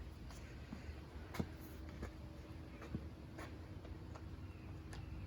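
Faint, scattered clicks and light taps of small parts being handled during reassembly of a string trimmer's starter housing, over a steady low hum.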